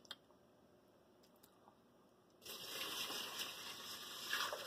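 Water poured from a saucepan into a rice cooker's inner pot onto hot, dry brown rice: a steady splashing pour that starts about halfway through and lasts about two and a half seconds. A faint knock or two near the start.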